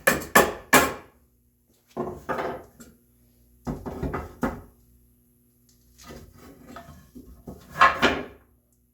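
Hard wooden knocks and clatter, oak boards being handled and set down: a quick run of sharp knocks at the start, then several short clusters of rattling with pauses between.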